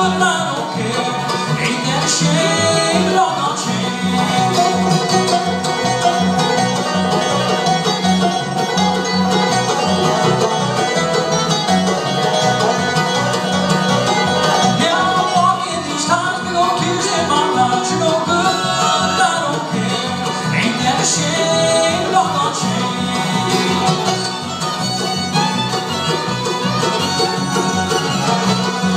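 Live bluegrass band playing fiddle, five-string banjo, acoustic guitar and upright bass together.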